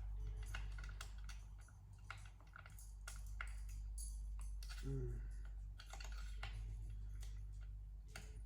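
Irregular light clicks and taps of hand tools working on a chainsaw, over a steady low hum.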